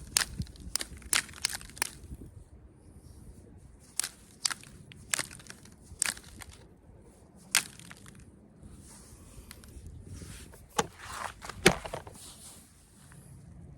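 Flint knapping on a weather-damaged stone arrowhead: sharp clicks and snaps as the knapping tool works the edge. There is a quick run of clicks in the first two seconds, then single clicks a second or more apart, with softer scraping between them.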